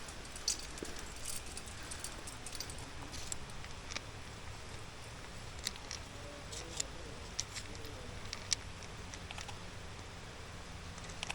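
Climbing hardware such as carabiners and a gear rack clinking now and then in short, sharp metallic clicks over a steady low background rumble.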